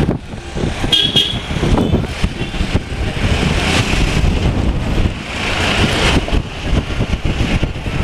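Busy street traffic with steady engine and road rumble. A short vehicle horn toots about a second in, and a car passes right by, swelling in noise around four seconds in and again near six seconds.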